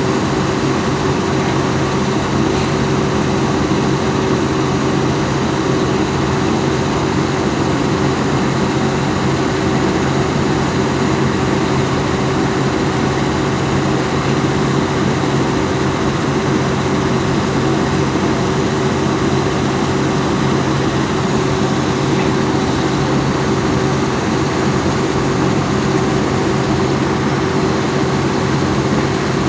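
Volvo EC210B excavator's diesel engine running steadily, an even drone that holds the same pitch and loudness throughout.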